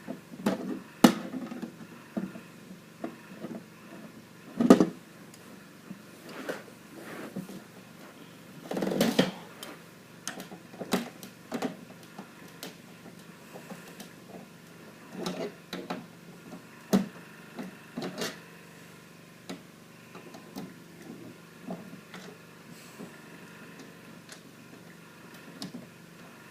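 Irregular clicks, knocks and rattles of a screwdriver and plastic parts being handled while an old printer is taken apart, with the loudest knocks about a second in, near five seconds and near nine seconds.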